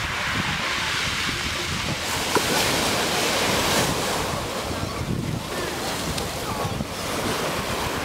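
Small waves of the Pacific breaking and washing up over a pebble beach, the rush of surf swelling loudest about two to four seconds in.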